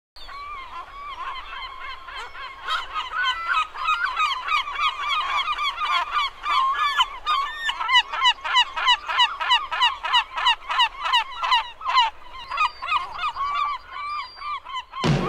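A large flock of birds calling, with many short, honking calls overlapping, growing denser and louder. It breaks off abruptly as music starts at the very end.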